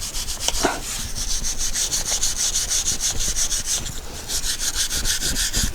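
Hand scrubbing of the wheel hub's mating surface, rapid back-and-forth strokes at several a second, cleaning off the surface where the wheel stuck on.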